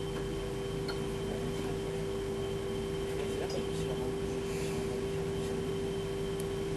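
Steady hum inside an Alstom Citadis 302 tram, holding one constant mid-pitched tone over a low rumble, with a few faint clicks.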